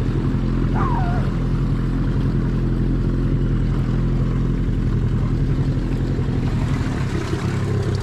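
Small outboard motor on an inflatable dinghy running at low speed, a steady, rapidly pulsing hum; it changes and eases slightly near the end as the dinghy comes alongside.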